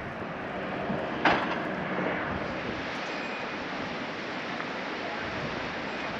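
Steady rush of strong wind, with one short sharp sound about a second in.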